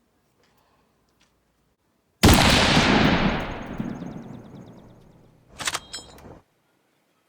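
A single rifle shot with a long echoing tail that dies away over about three seconds, followed by a few sharp metallic clicks.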